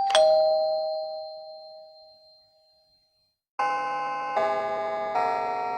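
A two-note ding-dong chime, the second note lower, ringing out and fading over about three seconds. After a short silence, a run of sustained bell-like chords begins, changing about every three quarters of a second.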